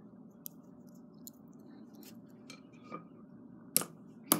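A smashed plastic earbud handled and dropped onto a hard floor: a few faint ticks, then two sharp clicks near the end.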